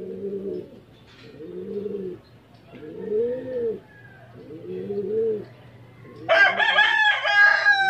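Pigeons cooing: a low call that rises and falls, repeated about every second and a half, five times. Near the end comes a louder rooster crow lasting about a second and a half.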